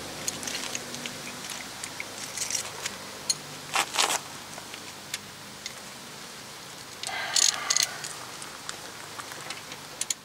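Scattered metallic clicks and clinks of hand tools and brake parts being handled, with a couple of louder knocks about four seconds in and a quick cluster of clinks around seven to eight seconds. A faint steady low hum sits underneath.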